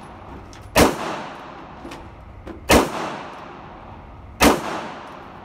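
Three shots from a North American Arms Pug .22 Magnum five-shot mini revolver, about two seconds apart, each echoing off the walls of an indoor range.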